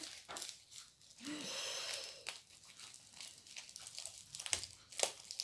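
Small scissors snipping and a mailing package crinkling and tearing as it is cut open, in scattered clicks and rustles.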